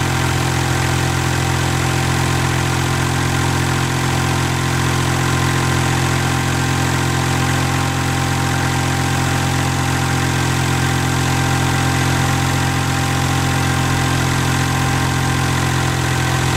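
Kubota three-cylinder natural-gas engine of a portable hydraulic power unit running steadily off load at about 1,700 rpm.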